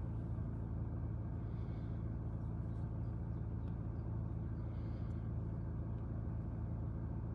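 BMW 118d's four-cylinder diesel engine idling steadily, heard from inside the cabin.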